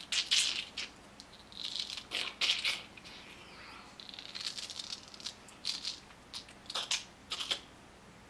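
A boy's mouth imitation of ice cracking: an irregular string of sharp, hissy cracks and clicks, some single and some in quick clusters.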